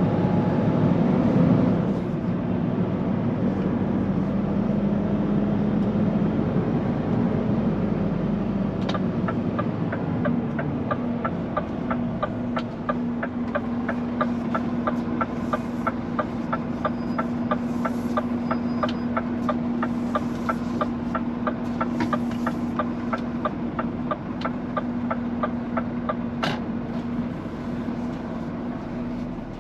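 Scania P410 truck's diesel engine running steadily while driving. A regular ticking, a few ticks a second, starts about nine seconds in and stops about two-thirds of the way through, and a single sharp click comes near the end.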